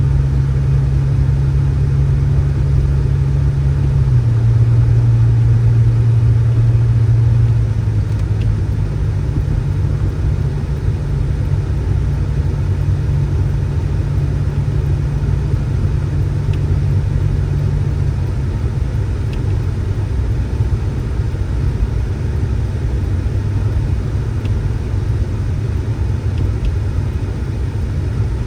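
A motor vehicle engine running with a steady low drone and rumble. Its pitch steps down slightly about four seconds in and again about seven seconds in, then holds steady.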